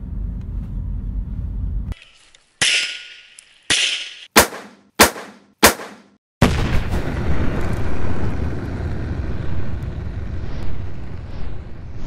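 Gunshot sound effects: a low rumble, then two shots with long fading tails, three sharp cracks about half a second apart, and a loud sustained rumble from about halfway through.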